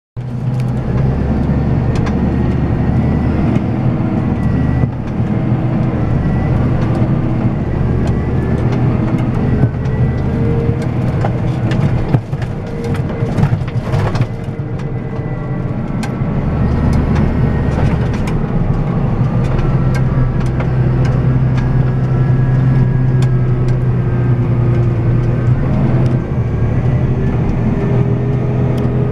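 Claas Axion 850 tractor engine running steadily as the tractor drives, heard from inside the cab, its low note shifting a few times. A cluster of knocks and rattles comes about halfway through.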